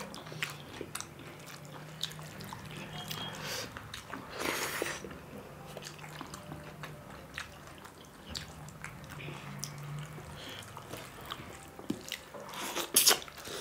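Two people eating rice and curry with their hands: moist chewing and lip smacks with scattered small clicks of fingers working rice on steel plates, and a few louder clicks near the end.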